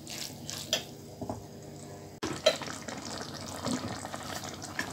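A spatula stirring fresh fenugreek leaves and tomato masala in a nonstick pot, with a few soft scrapes and clicks. About two seconds in it cuts to the curry simmering, a steady bubbling crackle with scattered pops.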